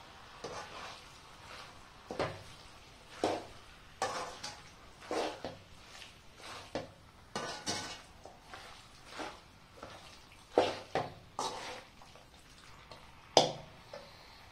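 Steel spoon stirring chicken pieces through a thick masala in a metal pot: irregular scrapes and clanks against the pot about once a second, a few of them sharp and loud.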